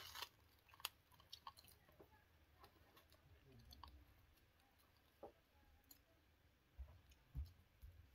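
Near silence with scattered faint clicks and small taps from people eating by hand: fingers and a spoon against plates and bowls, with some chewing. A louder click comes at the very start and a couple of dull thumps come near the end.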